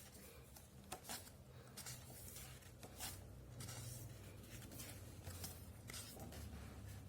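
Soft paper rustles of an album's photo book pages being handled and turned, several short ones spread out, over a faint low hum.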